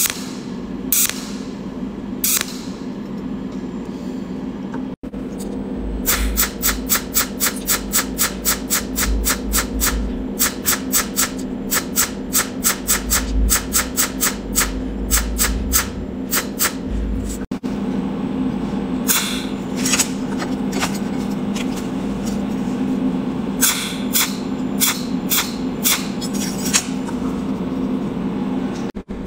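Cold welding machine's tungsten-electrode torch firing rapid pulsed micro-arc weld spots, each a sharp crackling tick. They come in a long even run of about three to four a second through the middle, with scattered pulses before and irregular clusters after, over a steady hum.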